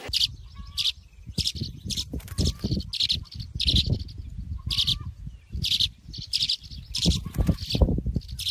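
Swallow nestling at a birdhouse entrance chirping repeatedly in short high calls, about two a second, over a low rumble.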